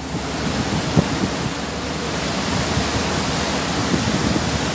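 Steady rush of water churned up in a river cruise boat's wake, mixed with wind buffeting the microphone, with one brief thump about a second in.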